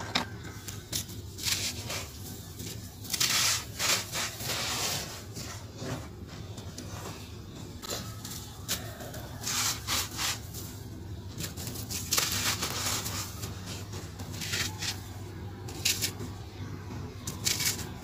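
A hand raking, scooping and rubbing through loose dry cement powder, with irregular gritty rustling scrapes. Grains pour in a sandy trickle from a fist, and near the end a cement block is rubbed and crumbled.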